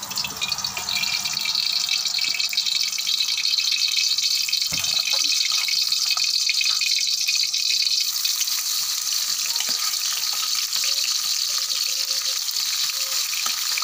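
Oil sizzling in a hot aluminium wok on a gas stove: a steady hiss that grows a little brighter about halfway through.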